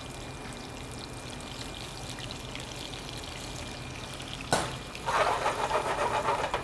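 Raw shrimp sizzling in hot olive oil in a skillet, a steady hiss. About four and a half seconds in, a sharp clank as a steel bowl is set down, then the sizzle grows louder and crackles busily as the pan is handled for the last second and a half.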